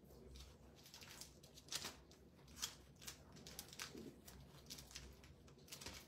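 Faint rustling and scattered light clicks of paper and plastic craft supplies being handled, as a mask stencil is looked for.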